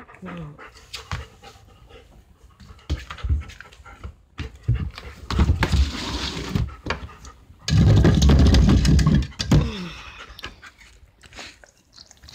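German shepherd panting rapidly close to the microphone, with a loud, low rumble of noise lasting about two seconds a little past the middle.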